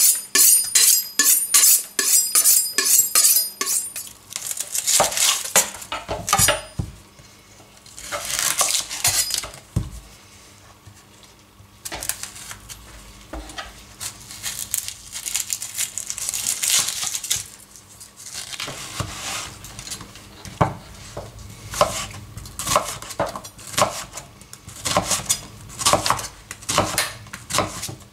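A large kitchen knife drawn quickly across a sharpening steel, ringing metal-on-metal strokes about three a second for the first four seconds. Later, the knife slicing onion on a wooden board, a run of sharp knocks one or two a second.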